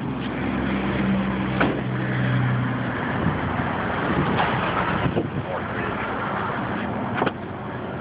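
A vehicle engine idles with a low steady hum for about the first three seconds, under constant rustling from the camera being carried. A sharp knock comes about seven seconds in, and it is slightly quieter after it.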